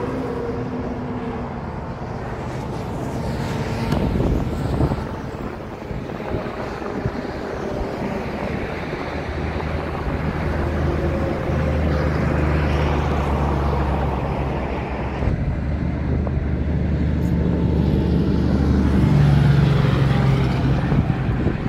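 Semi tractor-trailers passing on a highway: a steady rush of tyre and road noise with the low, even hum of diesel engines. About two thirds of the way in a truck hauling a livestock trailer comes past close, and its engine hum is loudest near the end.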